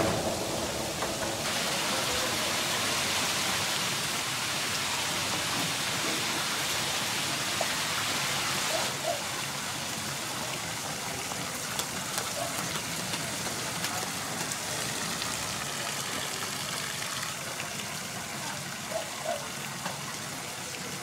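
Steady hissing background noise, louder from about a second and a half in to about nine seconds, then a little quieter, with a few faint short squeaks in the later part.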